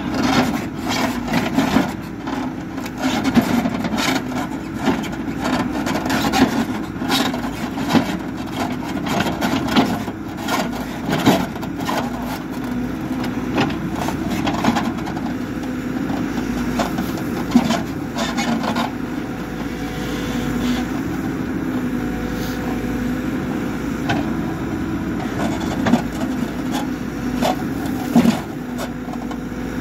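HİDROMEK backhoe loader's diesel engine running steadily under work, with frequent sharp knocks over it that thin out after about twenty seconds.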